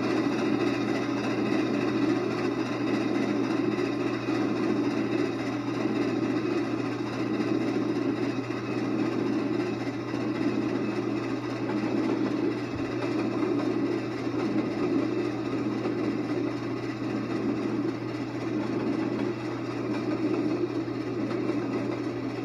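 Long passenger train rolling by at a steady speed: a continuous, even rumble with a steady low hum underneath.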